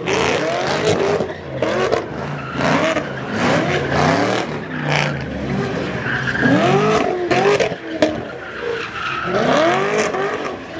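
Car engines revving up and falling back again and again as cars drift, with tyres spinning and skidding on snow.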